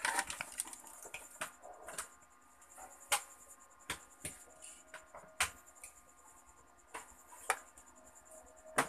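Hands plugging in a TV's power cord and handling its cables and test leads around the circuit board: scattered light clicks and knocks, about one a second.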